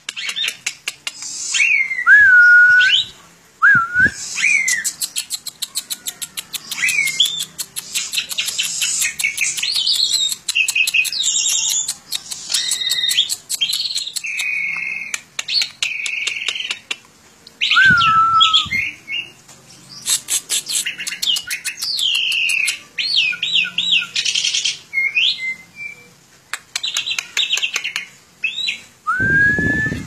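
Caged Asian pied starling singing a long, varied song: fast rattling clicks mixed with whistled notes, several of them falling glides. The song breaks off briefly a few times and ends on a rising whistle.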